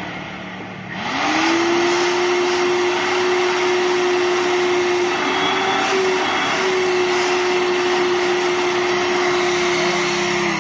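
Second-hand canister vacuum cleaner being test-run: the motor is switched on about a second in, spins up quickly and runs with a steady whine over a rushing hiss of air. Near the end it is switched off and its pitch starts to fall.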